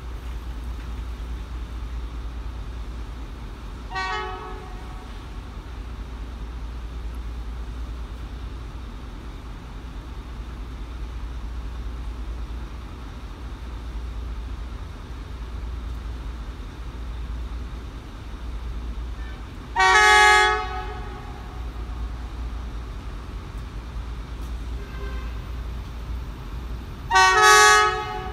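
Diesel locomotive horn of an approaching train sounding three times: a short, faint blast about four seconds in, then two loud blasts of about a second each, one near the middle and one near the end. A steady low rumble runs underneath.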